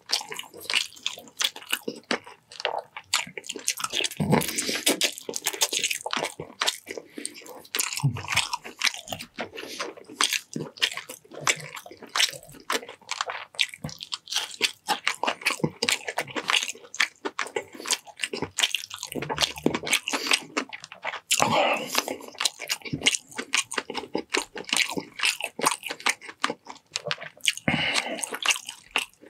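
Close-miked eating: a person biting, chewing and crunching through a meal of chicken adobo in coconut milk, rice and cucumber, with many quick wet mouth clicks and smacks and a few heavier bites.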